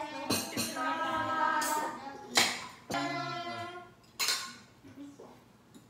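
Several people calling out a toast in drawn-out voices, then drinking glasses clinking together: two sharp clinks, about two and a half and four seconds in.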